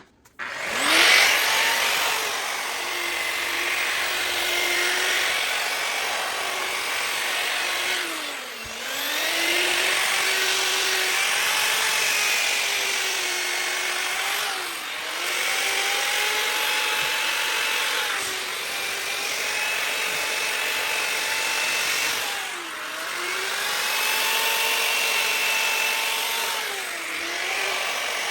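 Bauer variable-speed grinder with a 220-grit sanding pad, running continuously and sanding a cast iron skillet down to bare metal. The motor whine and gritty sanding hiss are steady, with the motor's pitch sagging briefly about every six or seven seconds.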